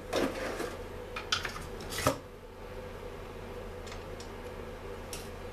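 Clicks and clinks of small metal tools and chainsaw parts being picked up and handled on a workbench, a few sharp knocks in the first two seconds with the loudest about two seconds in. After that only a steady low hum, with a faint tick now and then.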